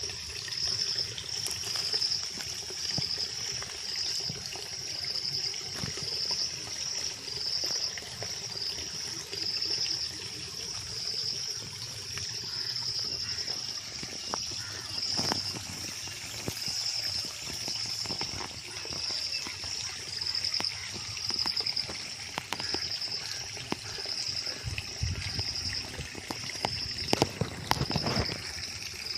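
Insects chirping in high, evenly repeated pulses, over a steady background hiss that could be trickling water.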